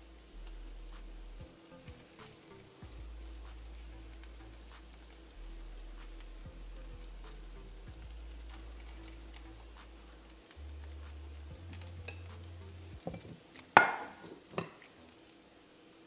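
Burnt shredded cheddar sizzling and crackling faintly in a hot granite-coated frying pan. About three-quarters of the way through comes one sharp clink with a short ring, and a smaller clink just after, as a glass plate meets the pan and cooktop.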